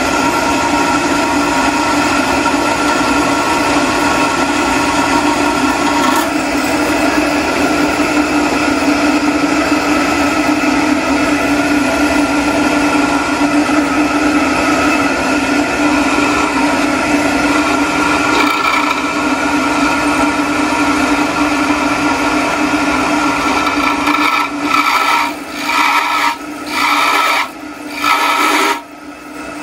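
Drill press running with its bit cutting into a steel railroad spike clamped in the vise: a steady grinding hum with a whine above it. Near the end the cutting noise breaks off and comes back several times.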